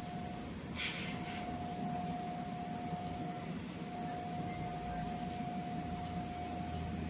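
Steady hiss and a thin, steady tone from the woofer wired to the stereo amplifier under test, the tone dropping out briefly twice. A short rustle about a second in.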